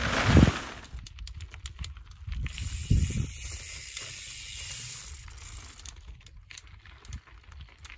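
Mountain bike tyres on a dirt and rock trail. A loud rush of tyre noise in the first second as a rider skids past, then scattered clicks and knocks as a rider climbs over rock.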